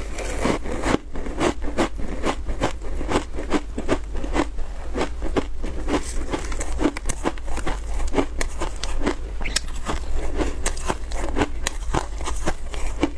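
Close-miked biting and chewing of a frozen block of shaved ice coated in milk powder: a dense run of crisp, icy crunches, several a second.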